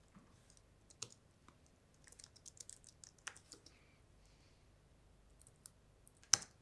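Typing on a slim, low-profile computer keyboard: a single tap about a second in, a quick run of light keystrokes between two and three and a half seconds in, and one sharper keystroke near the end.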